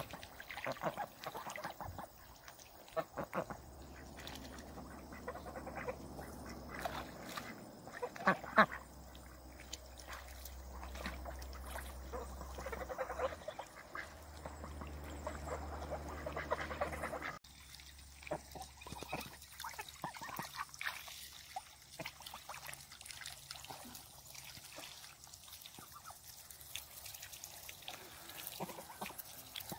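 A small flock of Pekin ducks and Danish geese calling on the water, mostly quacking, in short calls scattered throughout. A low steady hum runs under the first half and cuts off suddenly, after which the calls are quieter and sparser.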